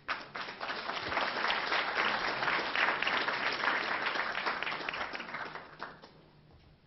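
Audience applauding: a dense patter of many hands clapping that swells over the first few seconds and dies away about six seconds in.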